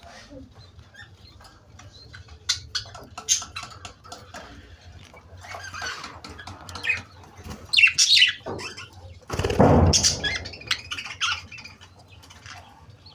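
Pet parrot making short chirps and squawks, with rustling and flapping; the loudest flurry comes about ten seconds in.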